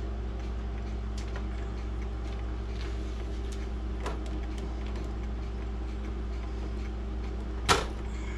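Small metal clicks and taps of pliers working a pin out of a grandmother clock's movement, with one louder, sharp click near the end as the pin comes free. A steady low hum underlies it.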